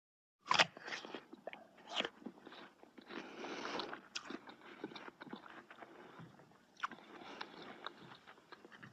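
Someone biting into and chewing a crunchy food close to the microphone: a loud crunching bite about half a second in, further bites near one and two seconds, a longer crackling crunch around three seconds, then lighter chewing crunches and clicks.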